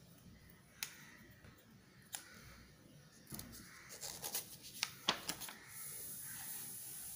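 Faint paper rustling and light handling noises as a textbook page is turned over, busiest about four to five seconds in, after a couple of single soft clicks.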